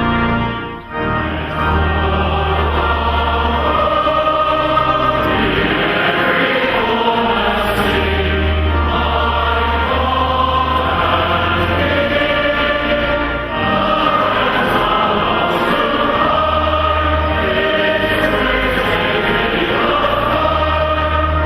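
A church choir singing, over long held deep bass notes, with a brief break about a second in where the music changes from the brass heard just before.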